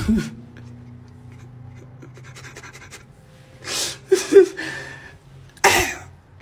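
A man's voice making short breathy bursts and brief vocal sounds rather than words: one right at the start, a cluster about four seconds in, and a sharp, loud one just before six seconds. A faint low hum fades out over the first two seconds.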